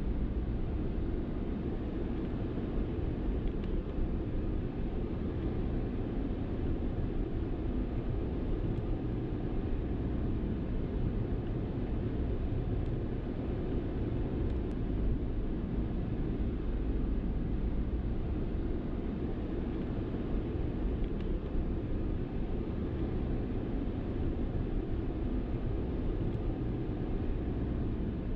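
Steady low rumble of a vehicle driving, road and engine noise with no change in pace.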